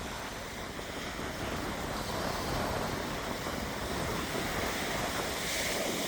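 Ocean surf washing onto a beach, a steady rushing noise, with some wind on the microphone.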